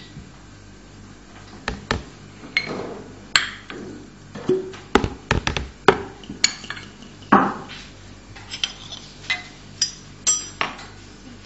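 Kitchen utensils and containers clinking and knocking against a mixing bowl as ingredients are spooned in: a dozen or so short, sharp taps at uneven intervals.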